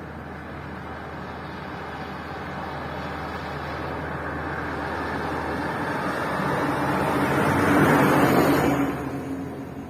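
A car approaching on the road, growing steadily louder until it passes about eight seconds in, then fading quickly.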